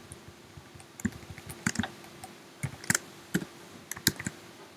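Computer keyboard keys tapped in short, irregular bursts while code is edited in a text editor, deleting characters from a file path. A faint steady hum runs underneath.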